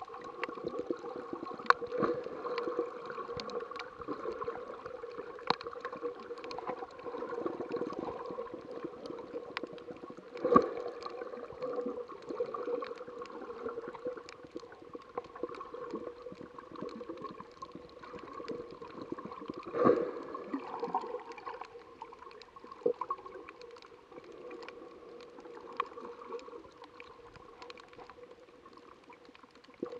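Muffled underwater sound heard through an action camera's waterproof housing: a steady hum with many scattered small clicks and crackles. Louder gurgling bursts come about ten seconds in and again about twenty seconds in, after which it settles quieter.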